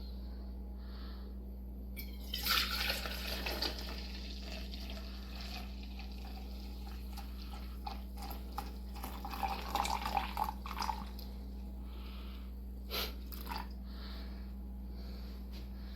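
Drip coffee maker running, with water dripping and sputtering in two louder stretches, about two seconds in and again around ten seconds in, over a steady low hum.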